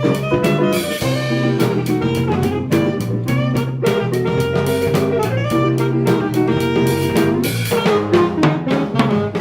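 Small instrumental band playing jazz-funk: a drum kit keeps a steady beat under a low bass line while horns, saxophone among them, play the melody.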